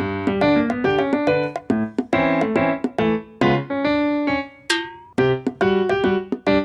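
Background music: a bright, quick piano melody of short plucked-sounding notes, with a brief falling glissando-like swoop just under five seconds in.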